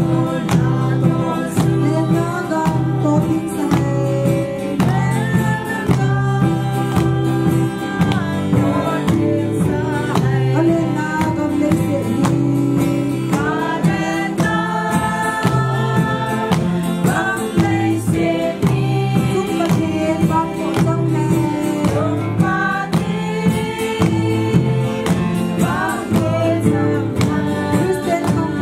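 A mixed group of men and women singing a Christian hymn together in unison, with acoustic guitar strumming and a steady beat.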